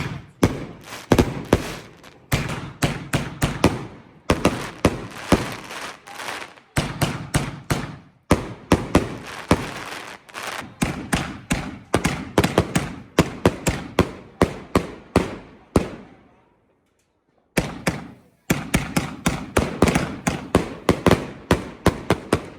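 A 168-shot fireworks cake firing shot after shot in rapid succession, two or three bangs a second. It stops for about two seconds about three quarters of the way in, then the barrage resumes until near the end.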